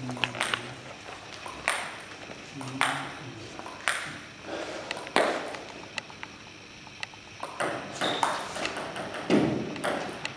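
Table tennis rally: a celluloid ball clicking off bats and the table in a steady back-and-forth, the loudest strikes about a second apart, echoing in a large hall.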